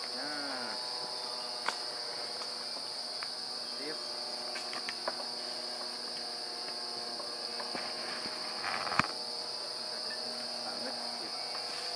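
Steady high-pitched drone of forest insects, with a few sharp clicks, the loudest about nine seconds in.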